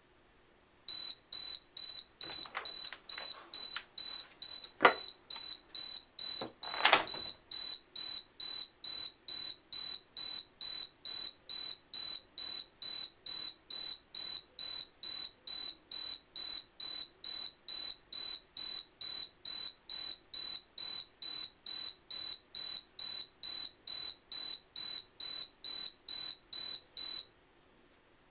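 Dummy alarm keypad's bleeper sounding a high, steady beep about twice a second for some 26 seconds, imitating the exit-delay beeping of an alarm being set. A few knocks and clicks come in the first several seconds, the loudest about seven seconds in.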